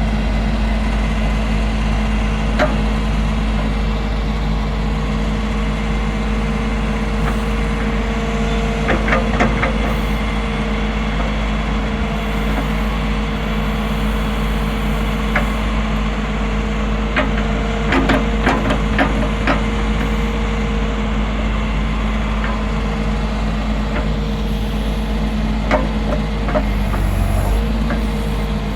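Diesel engine of a John Deere 410J backhoe loader running steadily. A few sharp knocks come in clusters about nine seconds in and again near the middle.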